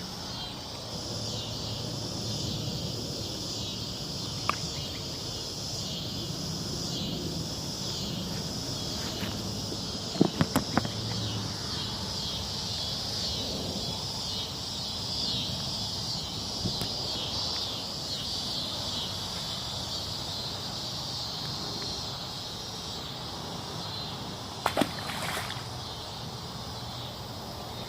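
Steady chorus of insects, a shrill high buzz with fast pulsing, over a low outdoor hum. A few sharp clicks or knocks break through, a cluster about ten seconds in and another a few seconds before the end.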